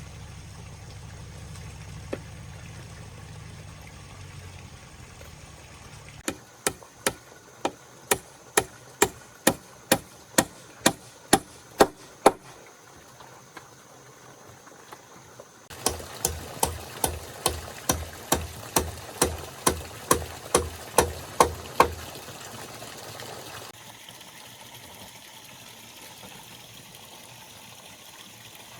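Two runs of steady, evenly spaced hammer blows, about two a second. The first starts about six seconds in and the second about sixteen seconds in, each lasting some six seconds. A low hum runs under the opening seconds and under the second run.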